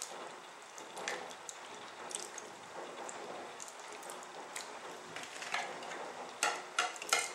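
Thick egg-and-cream mixture with grated cheese pouring and slopping from a bowl into a ceramic baking dish, a soft wet pattering. Near the end a wire whisk clicks several times against the bowl as the last of it is scraped out.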